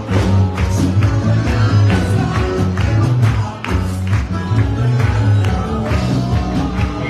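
Live worship band music with bass and a steady drum beat, and some singing.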